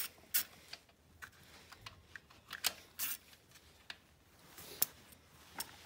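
Irregular sharp clicks and light metal taps from a hand socket ratchet being worked on a bolt in a car's engine bay.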